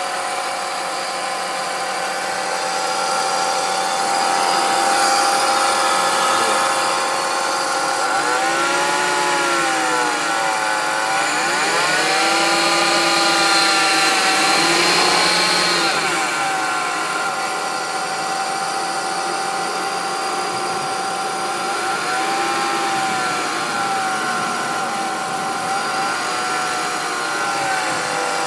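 BMW E46 325's straight-six engine idling with a steady whine over it. The owner suspects the whine comes from an idler pulley on the belt drive.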